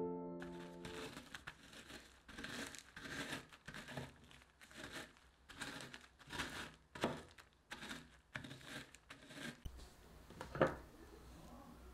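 Digestive biscuits crushed with a wooden rolling pin in a plastic zip-lock bag: repeated crunching strokes, roughly two a second, with the bag crinkling, and one louder crack near the end.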